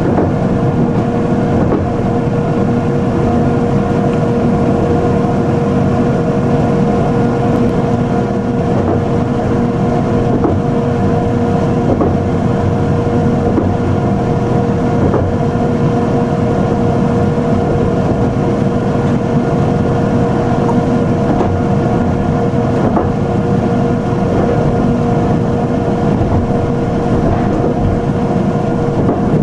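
Electric train running at steady speed, heard from inside its leading cab: a constant hum from the traction equipment over the rumble of wheels on rail, with a few faint clicks.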